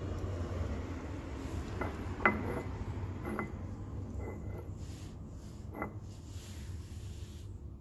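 A cat eating wet food from a dish, its dish clinking about five times, with the loudest clink a little over two seconds in, over a steady low hum.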